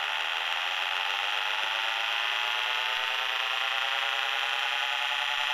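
Milton Bradley electronic toy spaceship's synthesized engine tone: a steady buzzy electronic drone with many overtones, gliding slowly upward in pitch as the ship climbs.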